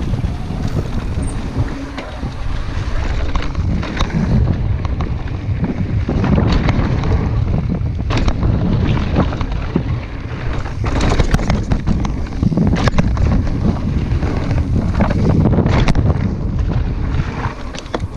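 Wind buffeting the microphone, a loud, steady low rumble, with scattered light knocks and clicks through it.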